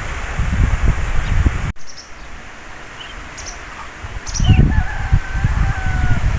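Strong wind buffeting the microphone in low rumbling gusts, which drop away suddenly a little under two seconds in and build again later. In the lull, small birds chirp, and near the end a rooster crows in one long, level call.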